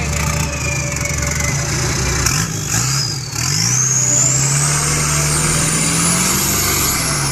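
Off-road 4x4's engine running under load. It dips briefly about three seconds in, then rises steadily in pitch as the vehicle accelerates, with a high whine climbing alongside.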